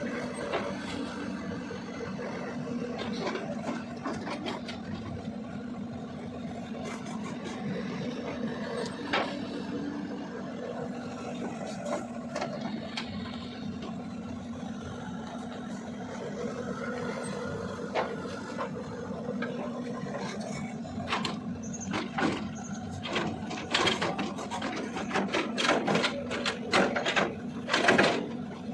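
Caterpillar 320D L long-arm excavator's diesel engine running steadily, with scattered knocks and clanks that come thicker and louder in the last few seconds.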